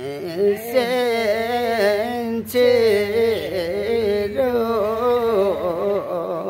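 Unaccompanied singing of a traditional Limbu song: one voice holding long, wavering notes in a slow melody.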